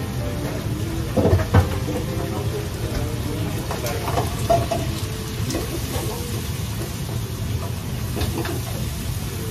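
Busy restaurant kitchen: a steady rush of pan-frying over a gas burner and kitchen ventilation, with metal pans and utensils clanking, loudest about a second and a half in.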